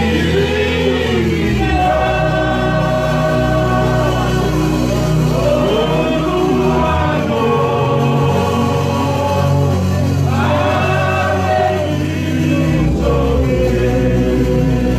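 Gospel worship song: voices singing long held notes over instrumental accompaniment with a steady bass line.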